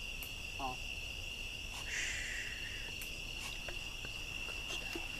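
Steady chorus of night insects, a continuous high-pitched trill, with a brief faint hiss about two seconds in.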